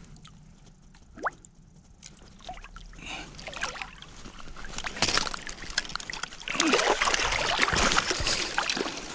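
Water splashing and sloshing as a large sturgeon is hauled by hand out of an ice-fishing hole and dragged onto the ice. It starts quietly, builds from a few seconds in, and is loudest over the last few seconds.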